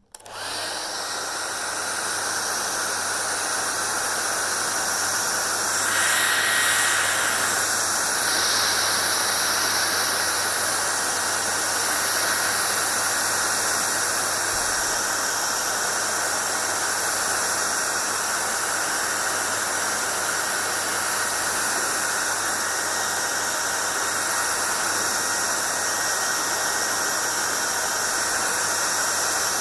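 Hair dryer switched on, building up over the first second or two, then running steadily: a constant rush of blown air with a low motor hum underneath. Its tone shifts briefly about six to eight seconds in.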